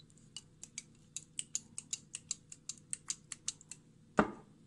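Gas stove's electric igniter clicking about five times a second as the burner under the frying pan is lit, then one loud thump near the end.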